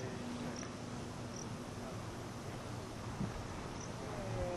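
An insect chirping: short, high chirps repeating every half second to a second over a steady outdoor hiss and a faint low hum.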